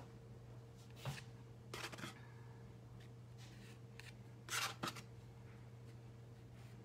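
Metal palette knife scraping thick acrylic paint across sketchbook paper: a few short strokes about a second in, another around two seconds, and a louder pair near five seconds, over a faint steady hum.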